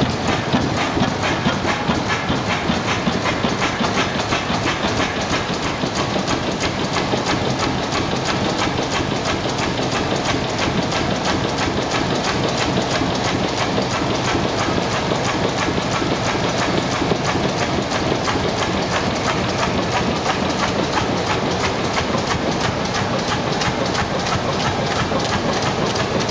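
1904 Deutz horizontal single-cylinder stationary gas engine running steadily, with a rapid, even mechanical clatter that does not change.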